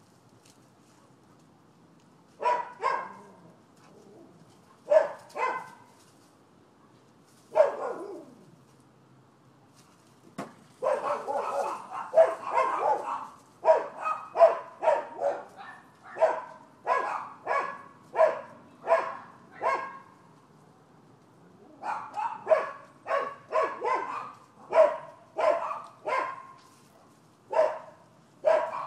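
Dogs barking in bouts: a few double barks a couple of seconds apart, then a stretch of overlapping barks, then long steady runs of about two barks a second with a short pause between them.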